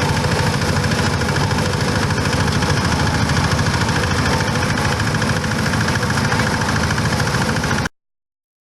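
Foam shredding machine running steadily with a fast even churn, cutting off abruptly near the end.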